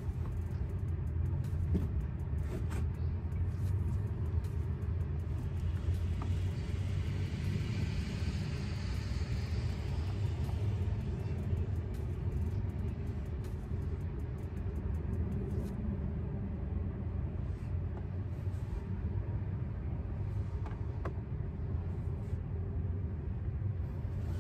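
Steady low rumble of road traffic, with a car passing about six seconds in, its hiss swelling and fading over a few seconds. Light clicks and fabric rustles as a blanket curtain is hung up.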